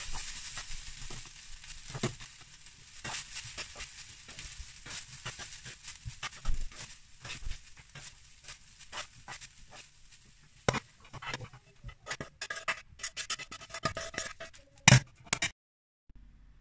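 Plastic spatula stirring and scraping vegetable fried rice in a hot pan: scattered clicks and scrapes against the pan, over a light sizzle that fades in the first couple of seconds. The clicks grow denser toward the end, with one louder knock near the end.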